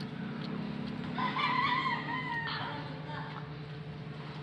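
A rooster crowing once in the background, starting about a second in and lasting just over a second, over a steady low hum.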